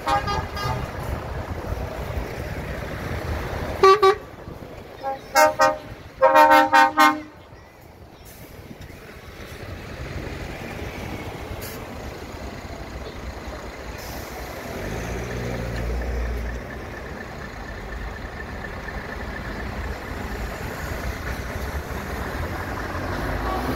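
Truck air horns tooting: one short blast about four seconds in, then a short toot and a longer blast between five and seven seconds, over the steady running of passing lorries' diesel engines. A deeper diesel rumble swells again later as more tractor units pass.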